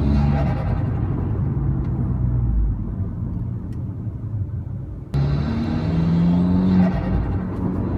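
Abarth 595 Competizione's turbocharged 1.4-litre four-cylinder heard from inside the cabin, with loud induction noise from its Forge intake. It pulls steadily at first, eases off and quietens from about two and a half seconds, then comes back on load suddenly about five seconds in, rising in pitch as it accelerates.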